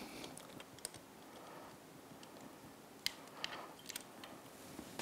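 Faint, scattered clicks of a hand tool and the spark plug against the Honda Grom's cylinder head as the plug is being taken out: one click about a second in, then a few more close together near the end.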